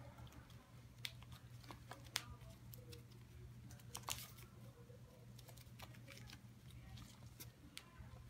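A squirrel's claws scuffling and scratching faintly on carpet, with a few sharper ticks scattered among them, over a low steady hum.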